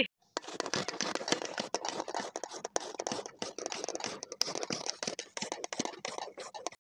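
Carrots being grated by hand on a flat metal grater: quick, repeated scraping strokes of carrot across the grater's teeth, starting about half a second in.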